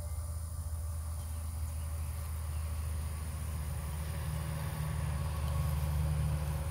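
A low, steady mechanical hum, growing somewhat louder about four and a half seconds in.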